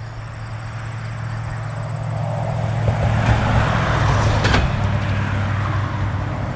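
A road vehicle passing: a swelling rush of tyre and engine noise, loudest about three to four seconds in, then falling in pitch as it moves away.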